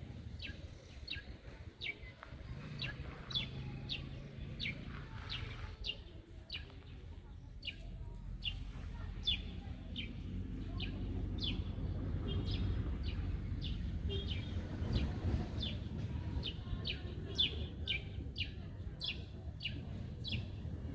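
A bird chirping over and over, short sharp chirps at about two a second, over a low rumble that grows louder about a third of the way in.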